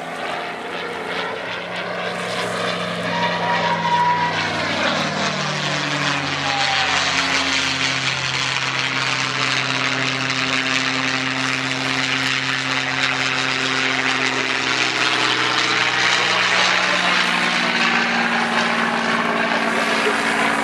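North American P-51D Mustang's Packard Merlin V-12 engine and propeller running through an aerobatic display. The engine note drops in pitch about five seconds in, holds steady, then rises again near the end.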